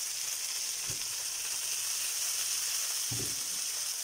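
Whole wild shrimp sizzling steadily in hot oil in a frying pan over a strong gas flame, a constant high hiss as they brown on their first side.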